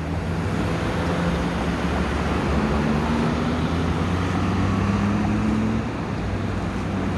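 Steady low motor hum with road traffic noise, a faint tone slowly drifting in pitch over it.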